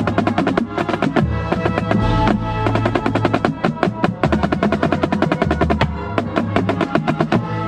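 Marching snare drum played close by in a fast, dense passage of rapid strokes and rolls, with lower drums of the drumline sounding beneath.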